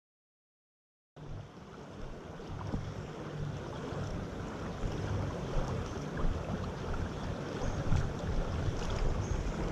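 Total silence for about a second, then river water rushing over rocky rapids, a steady noise that slowly grows louder, with a low rumble of wind on the microphone.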